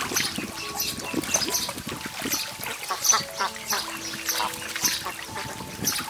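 Several domestic ducks bathing in a shallow pool, with repeated short splashes of water throughout and quacking calls among them.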